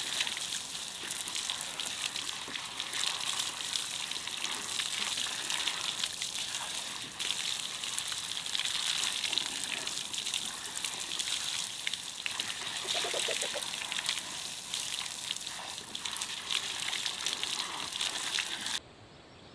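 Water from a garden hose pouring and splashing onto vegetables in a metal wheelbarrow: a steady splashing hiss that cuts off abruptly near the end.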